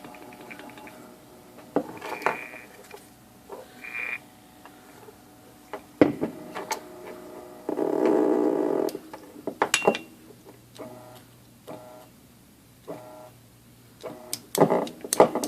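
IBM Selectric typewriter motor running with a steady low hum, its bearings freshly flushed of old oil with lacquer thinner, with scattered clicks and a few short mechanical whirring bursts from the machine, the loudest a little before the middle.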